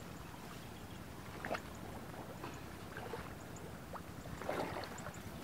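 Faint sloshing and small splashes of water over a low steady rumble, with a few slightly louder splashes about a second and a half in and again near the end.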